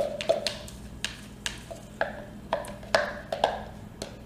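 Plastic pour cup of soap batter being handled and knocked, a run of light hollow knocks and clicks about two a second.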